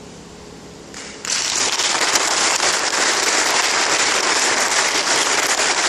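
The last piano chord dies away, then audience applause breaks out about a second in and carries on steadily.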